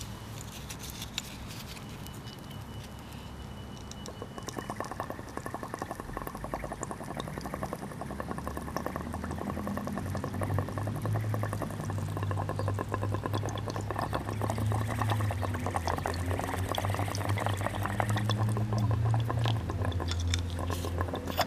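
Water in a glass bong bubbling rapidly as smoke is drawn through it, starting about four seconds in and growing gradually louder, with a steady low hum underneath.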